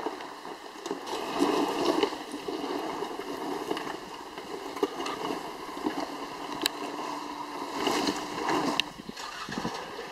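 Suzuki Jimny 4WD crawling slowly down a loose rocky track: its engine running low under the rough crunch of tyres over stones, with a few sharp knocks of rocks under the wheels.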